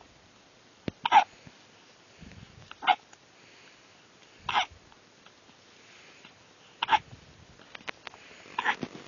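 A baby hiccuping: five short, sharp hiccups, about one every two seconds.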